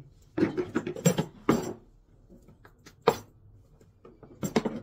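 Knocks and clicks of a new electric demolition hammer being handled in its hard plastic carrying case: a run of knocks in the first two seconds, one sharp click about three seconds in, and a few more knocks near the end.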